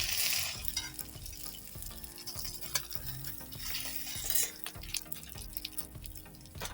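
Cooking sounds from making French toast: a utensil stirring and clinking against a bowl or pan, with a noisy scrape or sizzle starting right away and again a little before the end. Faint background music plays.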